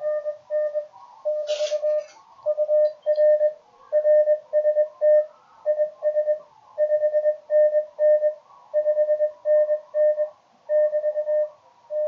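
Morse code (CW) signal on the 20-metre ham band, played through a radio receiver's speaker: a single steady tone keyed on and off in fast dots and dashes over faint band noise.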